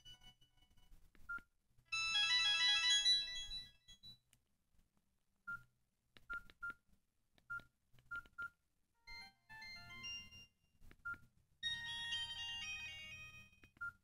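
Samsung GT-E1270 flip phone playing short previews of its built-in tones through its small speaker. A melodic ringtone jingle runs about two seconds in, a string of single short beeps at one pitch comes as the menus are scrolled, and two brief message-alert tunes play near the end.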